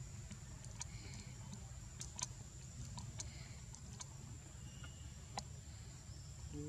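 Faint outdoor background: a steady low rumble with a thin, steady high-pitched whine above it and scattered sharp ticks.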